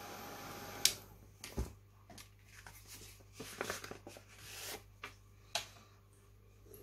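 Heat gun blowing to dry wet ink on a card, stopping abruptly with a click just under a second in. After that, scattered rustles, clicks and taps of the card stock being picked up, handled and set back down on a cutting mat.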